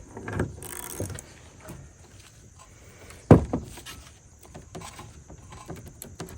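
Metal hand tools clinking and knocking as a 1/2-inch drive socket wrench is fitted to a bolt on a Corvette front spindle and worked. One loud knock comes about three seconds in.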